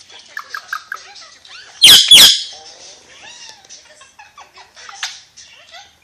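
Ringneck parakeet chattering softly in short chirps, with two loud, shrill screeches in quick succession about two seconds in and another brief call near the end.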